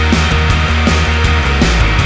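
Loud rock music with a steady drum beat and heavy bass.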